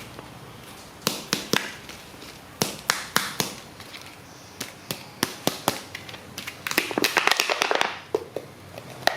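Plastic toy packaging being handled and opened: a run of sharp clicks and taps, then a dense patch of crackling about seven seconds in.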